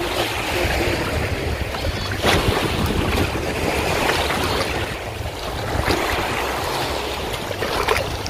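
Wind buffeting the microphone over waves of the Kama River washing against the shore, with a few short, sharp sounds standing out.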